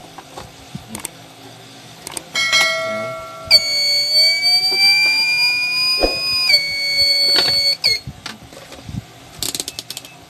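Electronic whine from a TBE 4000 W 24 V pure sine wave inverter under power, several high steady tones with one climbing in pitch through the middle. It lasts about five seconds and cuts off abruptly, followed by a few light clicks.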